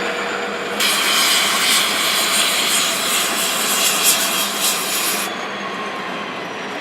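Loud hiss of compressed air venting from a train's air system, starting suddenly about a second in and cutting off sharply after about four and a half seconds, over the steady rumble of the train.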